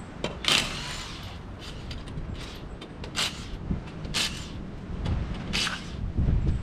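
A DeWalt cordless impact wrench run in about four short bursts, spinning lug nuts off a car's wheels. A dull low thump comes near the end.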